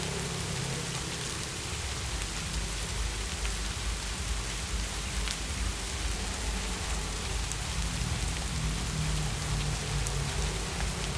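Heavy rain falling steadily: an even hiss of rain with a low rumble underneath.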